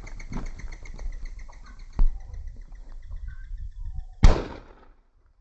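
A single shotgun shot about four seconds in, the loudest sound, bringing down a partridge in flight. Before it, a rapid run of high, evenly spaced pulses fades away, with a sharp click about two seconds in.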